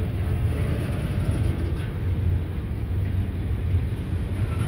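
Double-stack intermodal freight train's loaded well cars rolling past close by: a steady low rumble of steel wheels on the rails.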